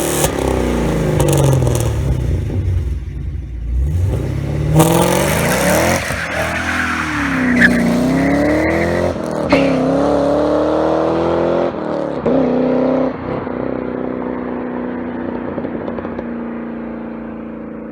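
2010 Camaro SS's LS3 V8 through a Magnaflow cat-back exhaust, revved several times with the engine pitch climbing and falling, then settling to a steady idle about three-quarters of the way through as the sound slowly fades.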